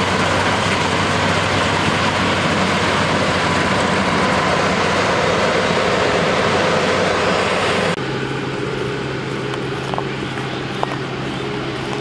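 LOVOL RG108 Plus V2.0 tracked rice combine harvester running as it cuts rice, a loud, dense mechanical din. About eight seconds in it drops suddenly to a quieter, steadier running sound with a low even hum and a couple of small clicks.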